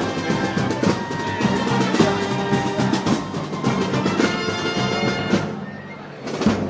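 Live Moros y Cristianos festival band music, held notes over steady drum beats; it drops away for a moment near the end before drum strokes come back in.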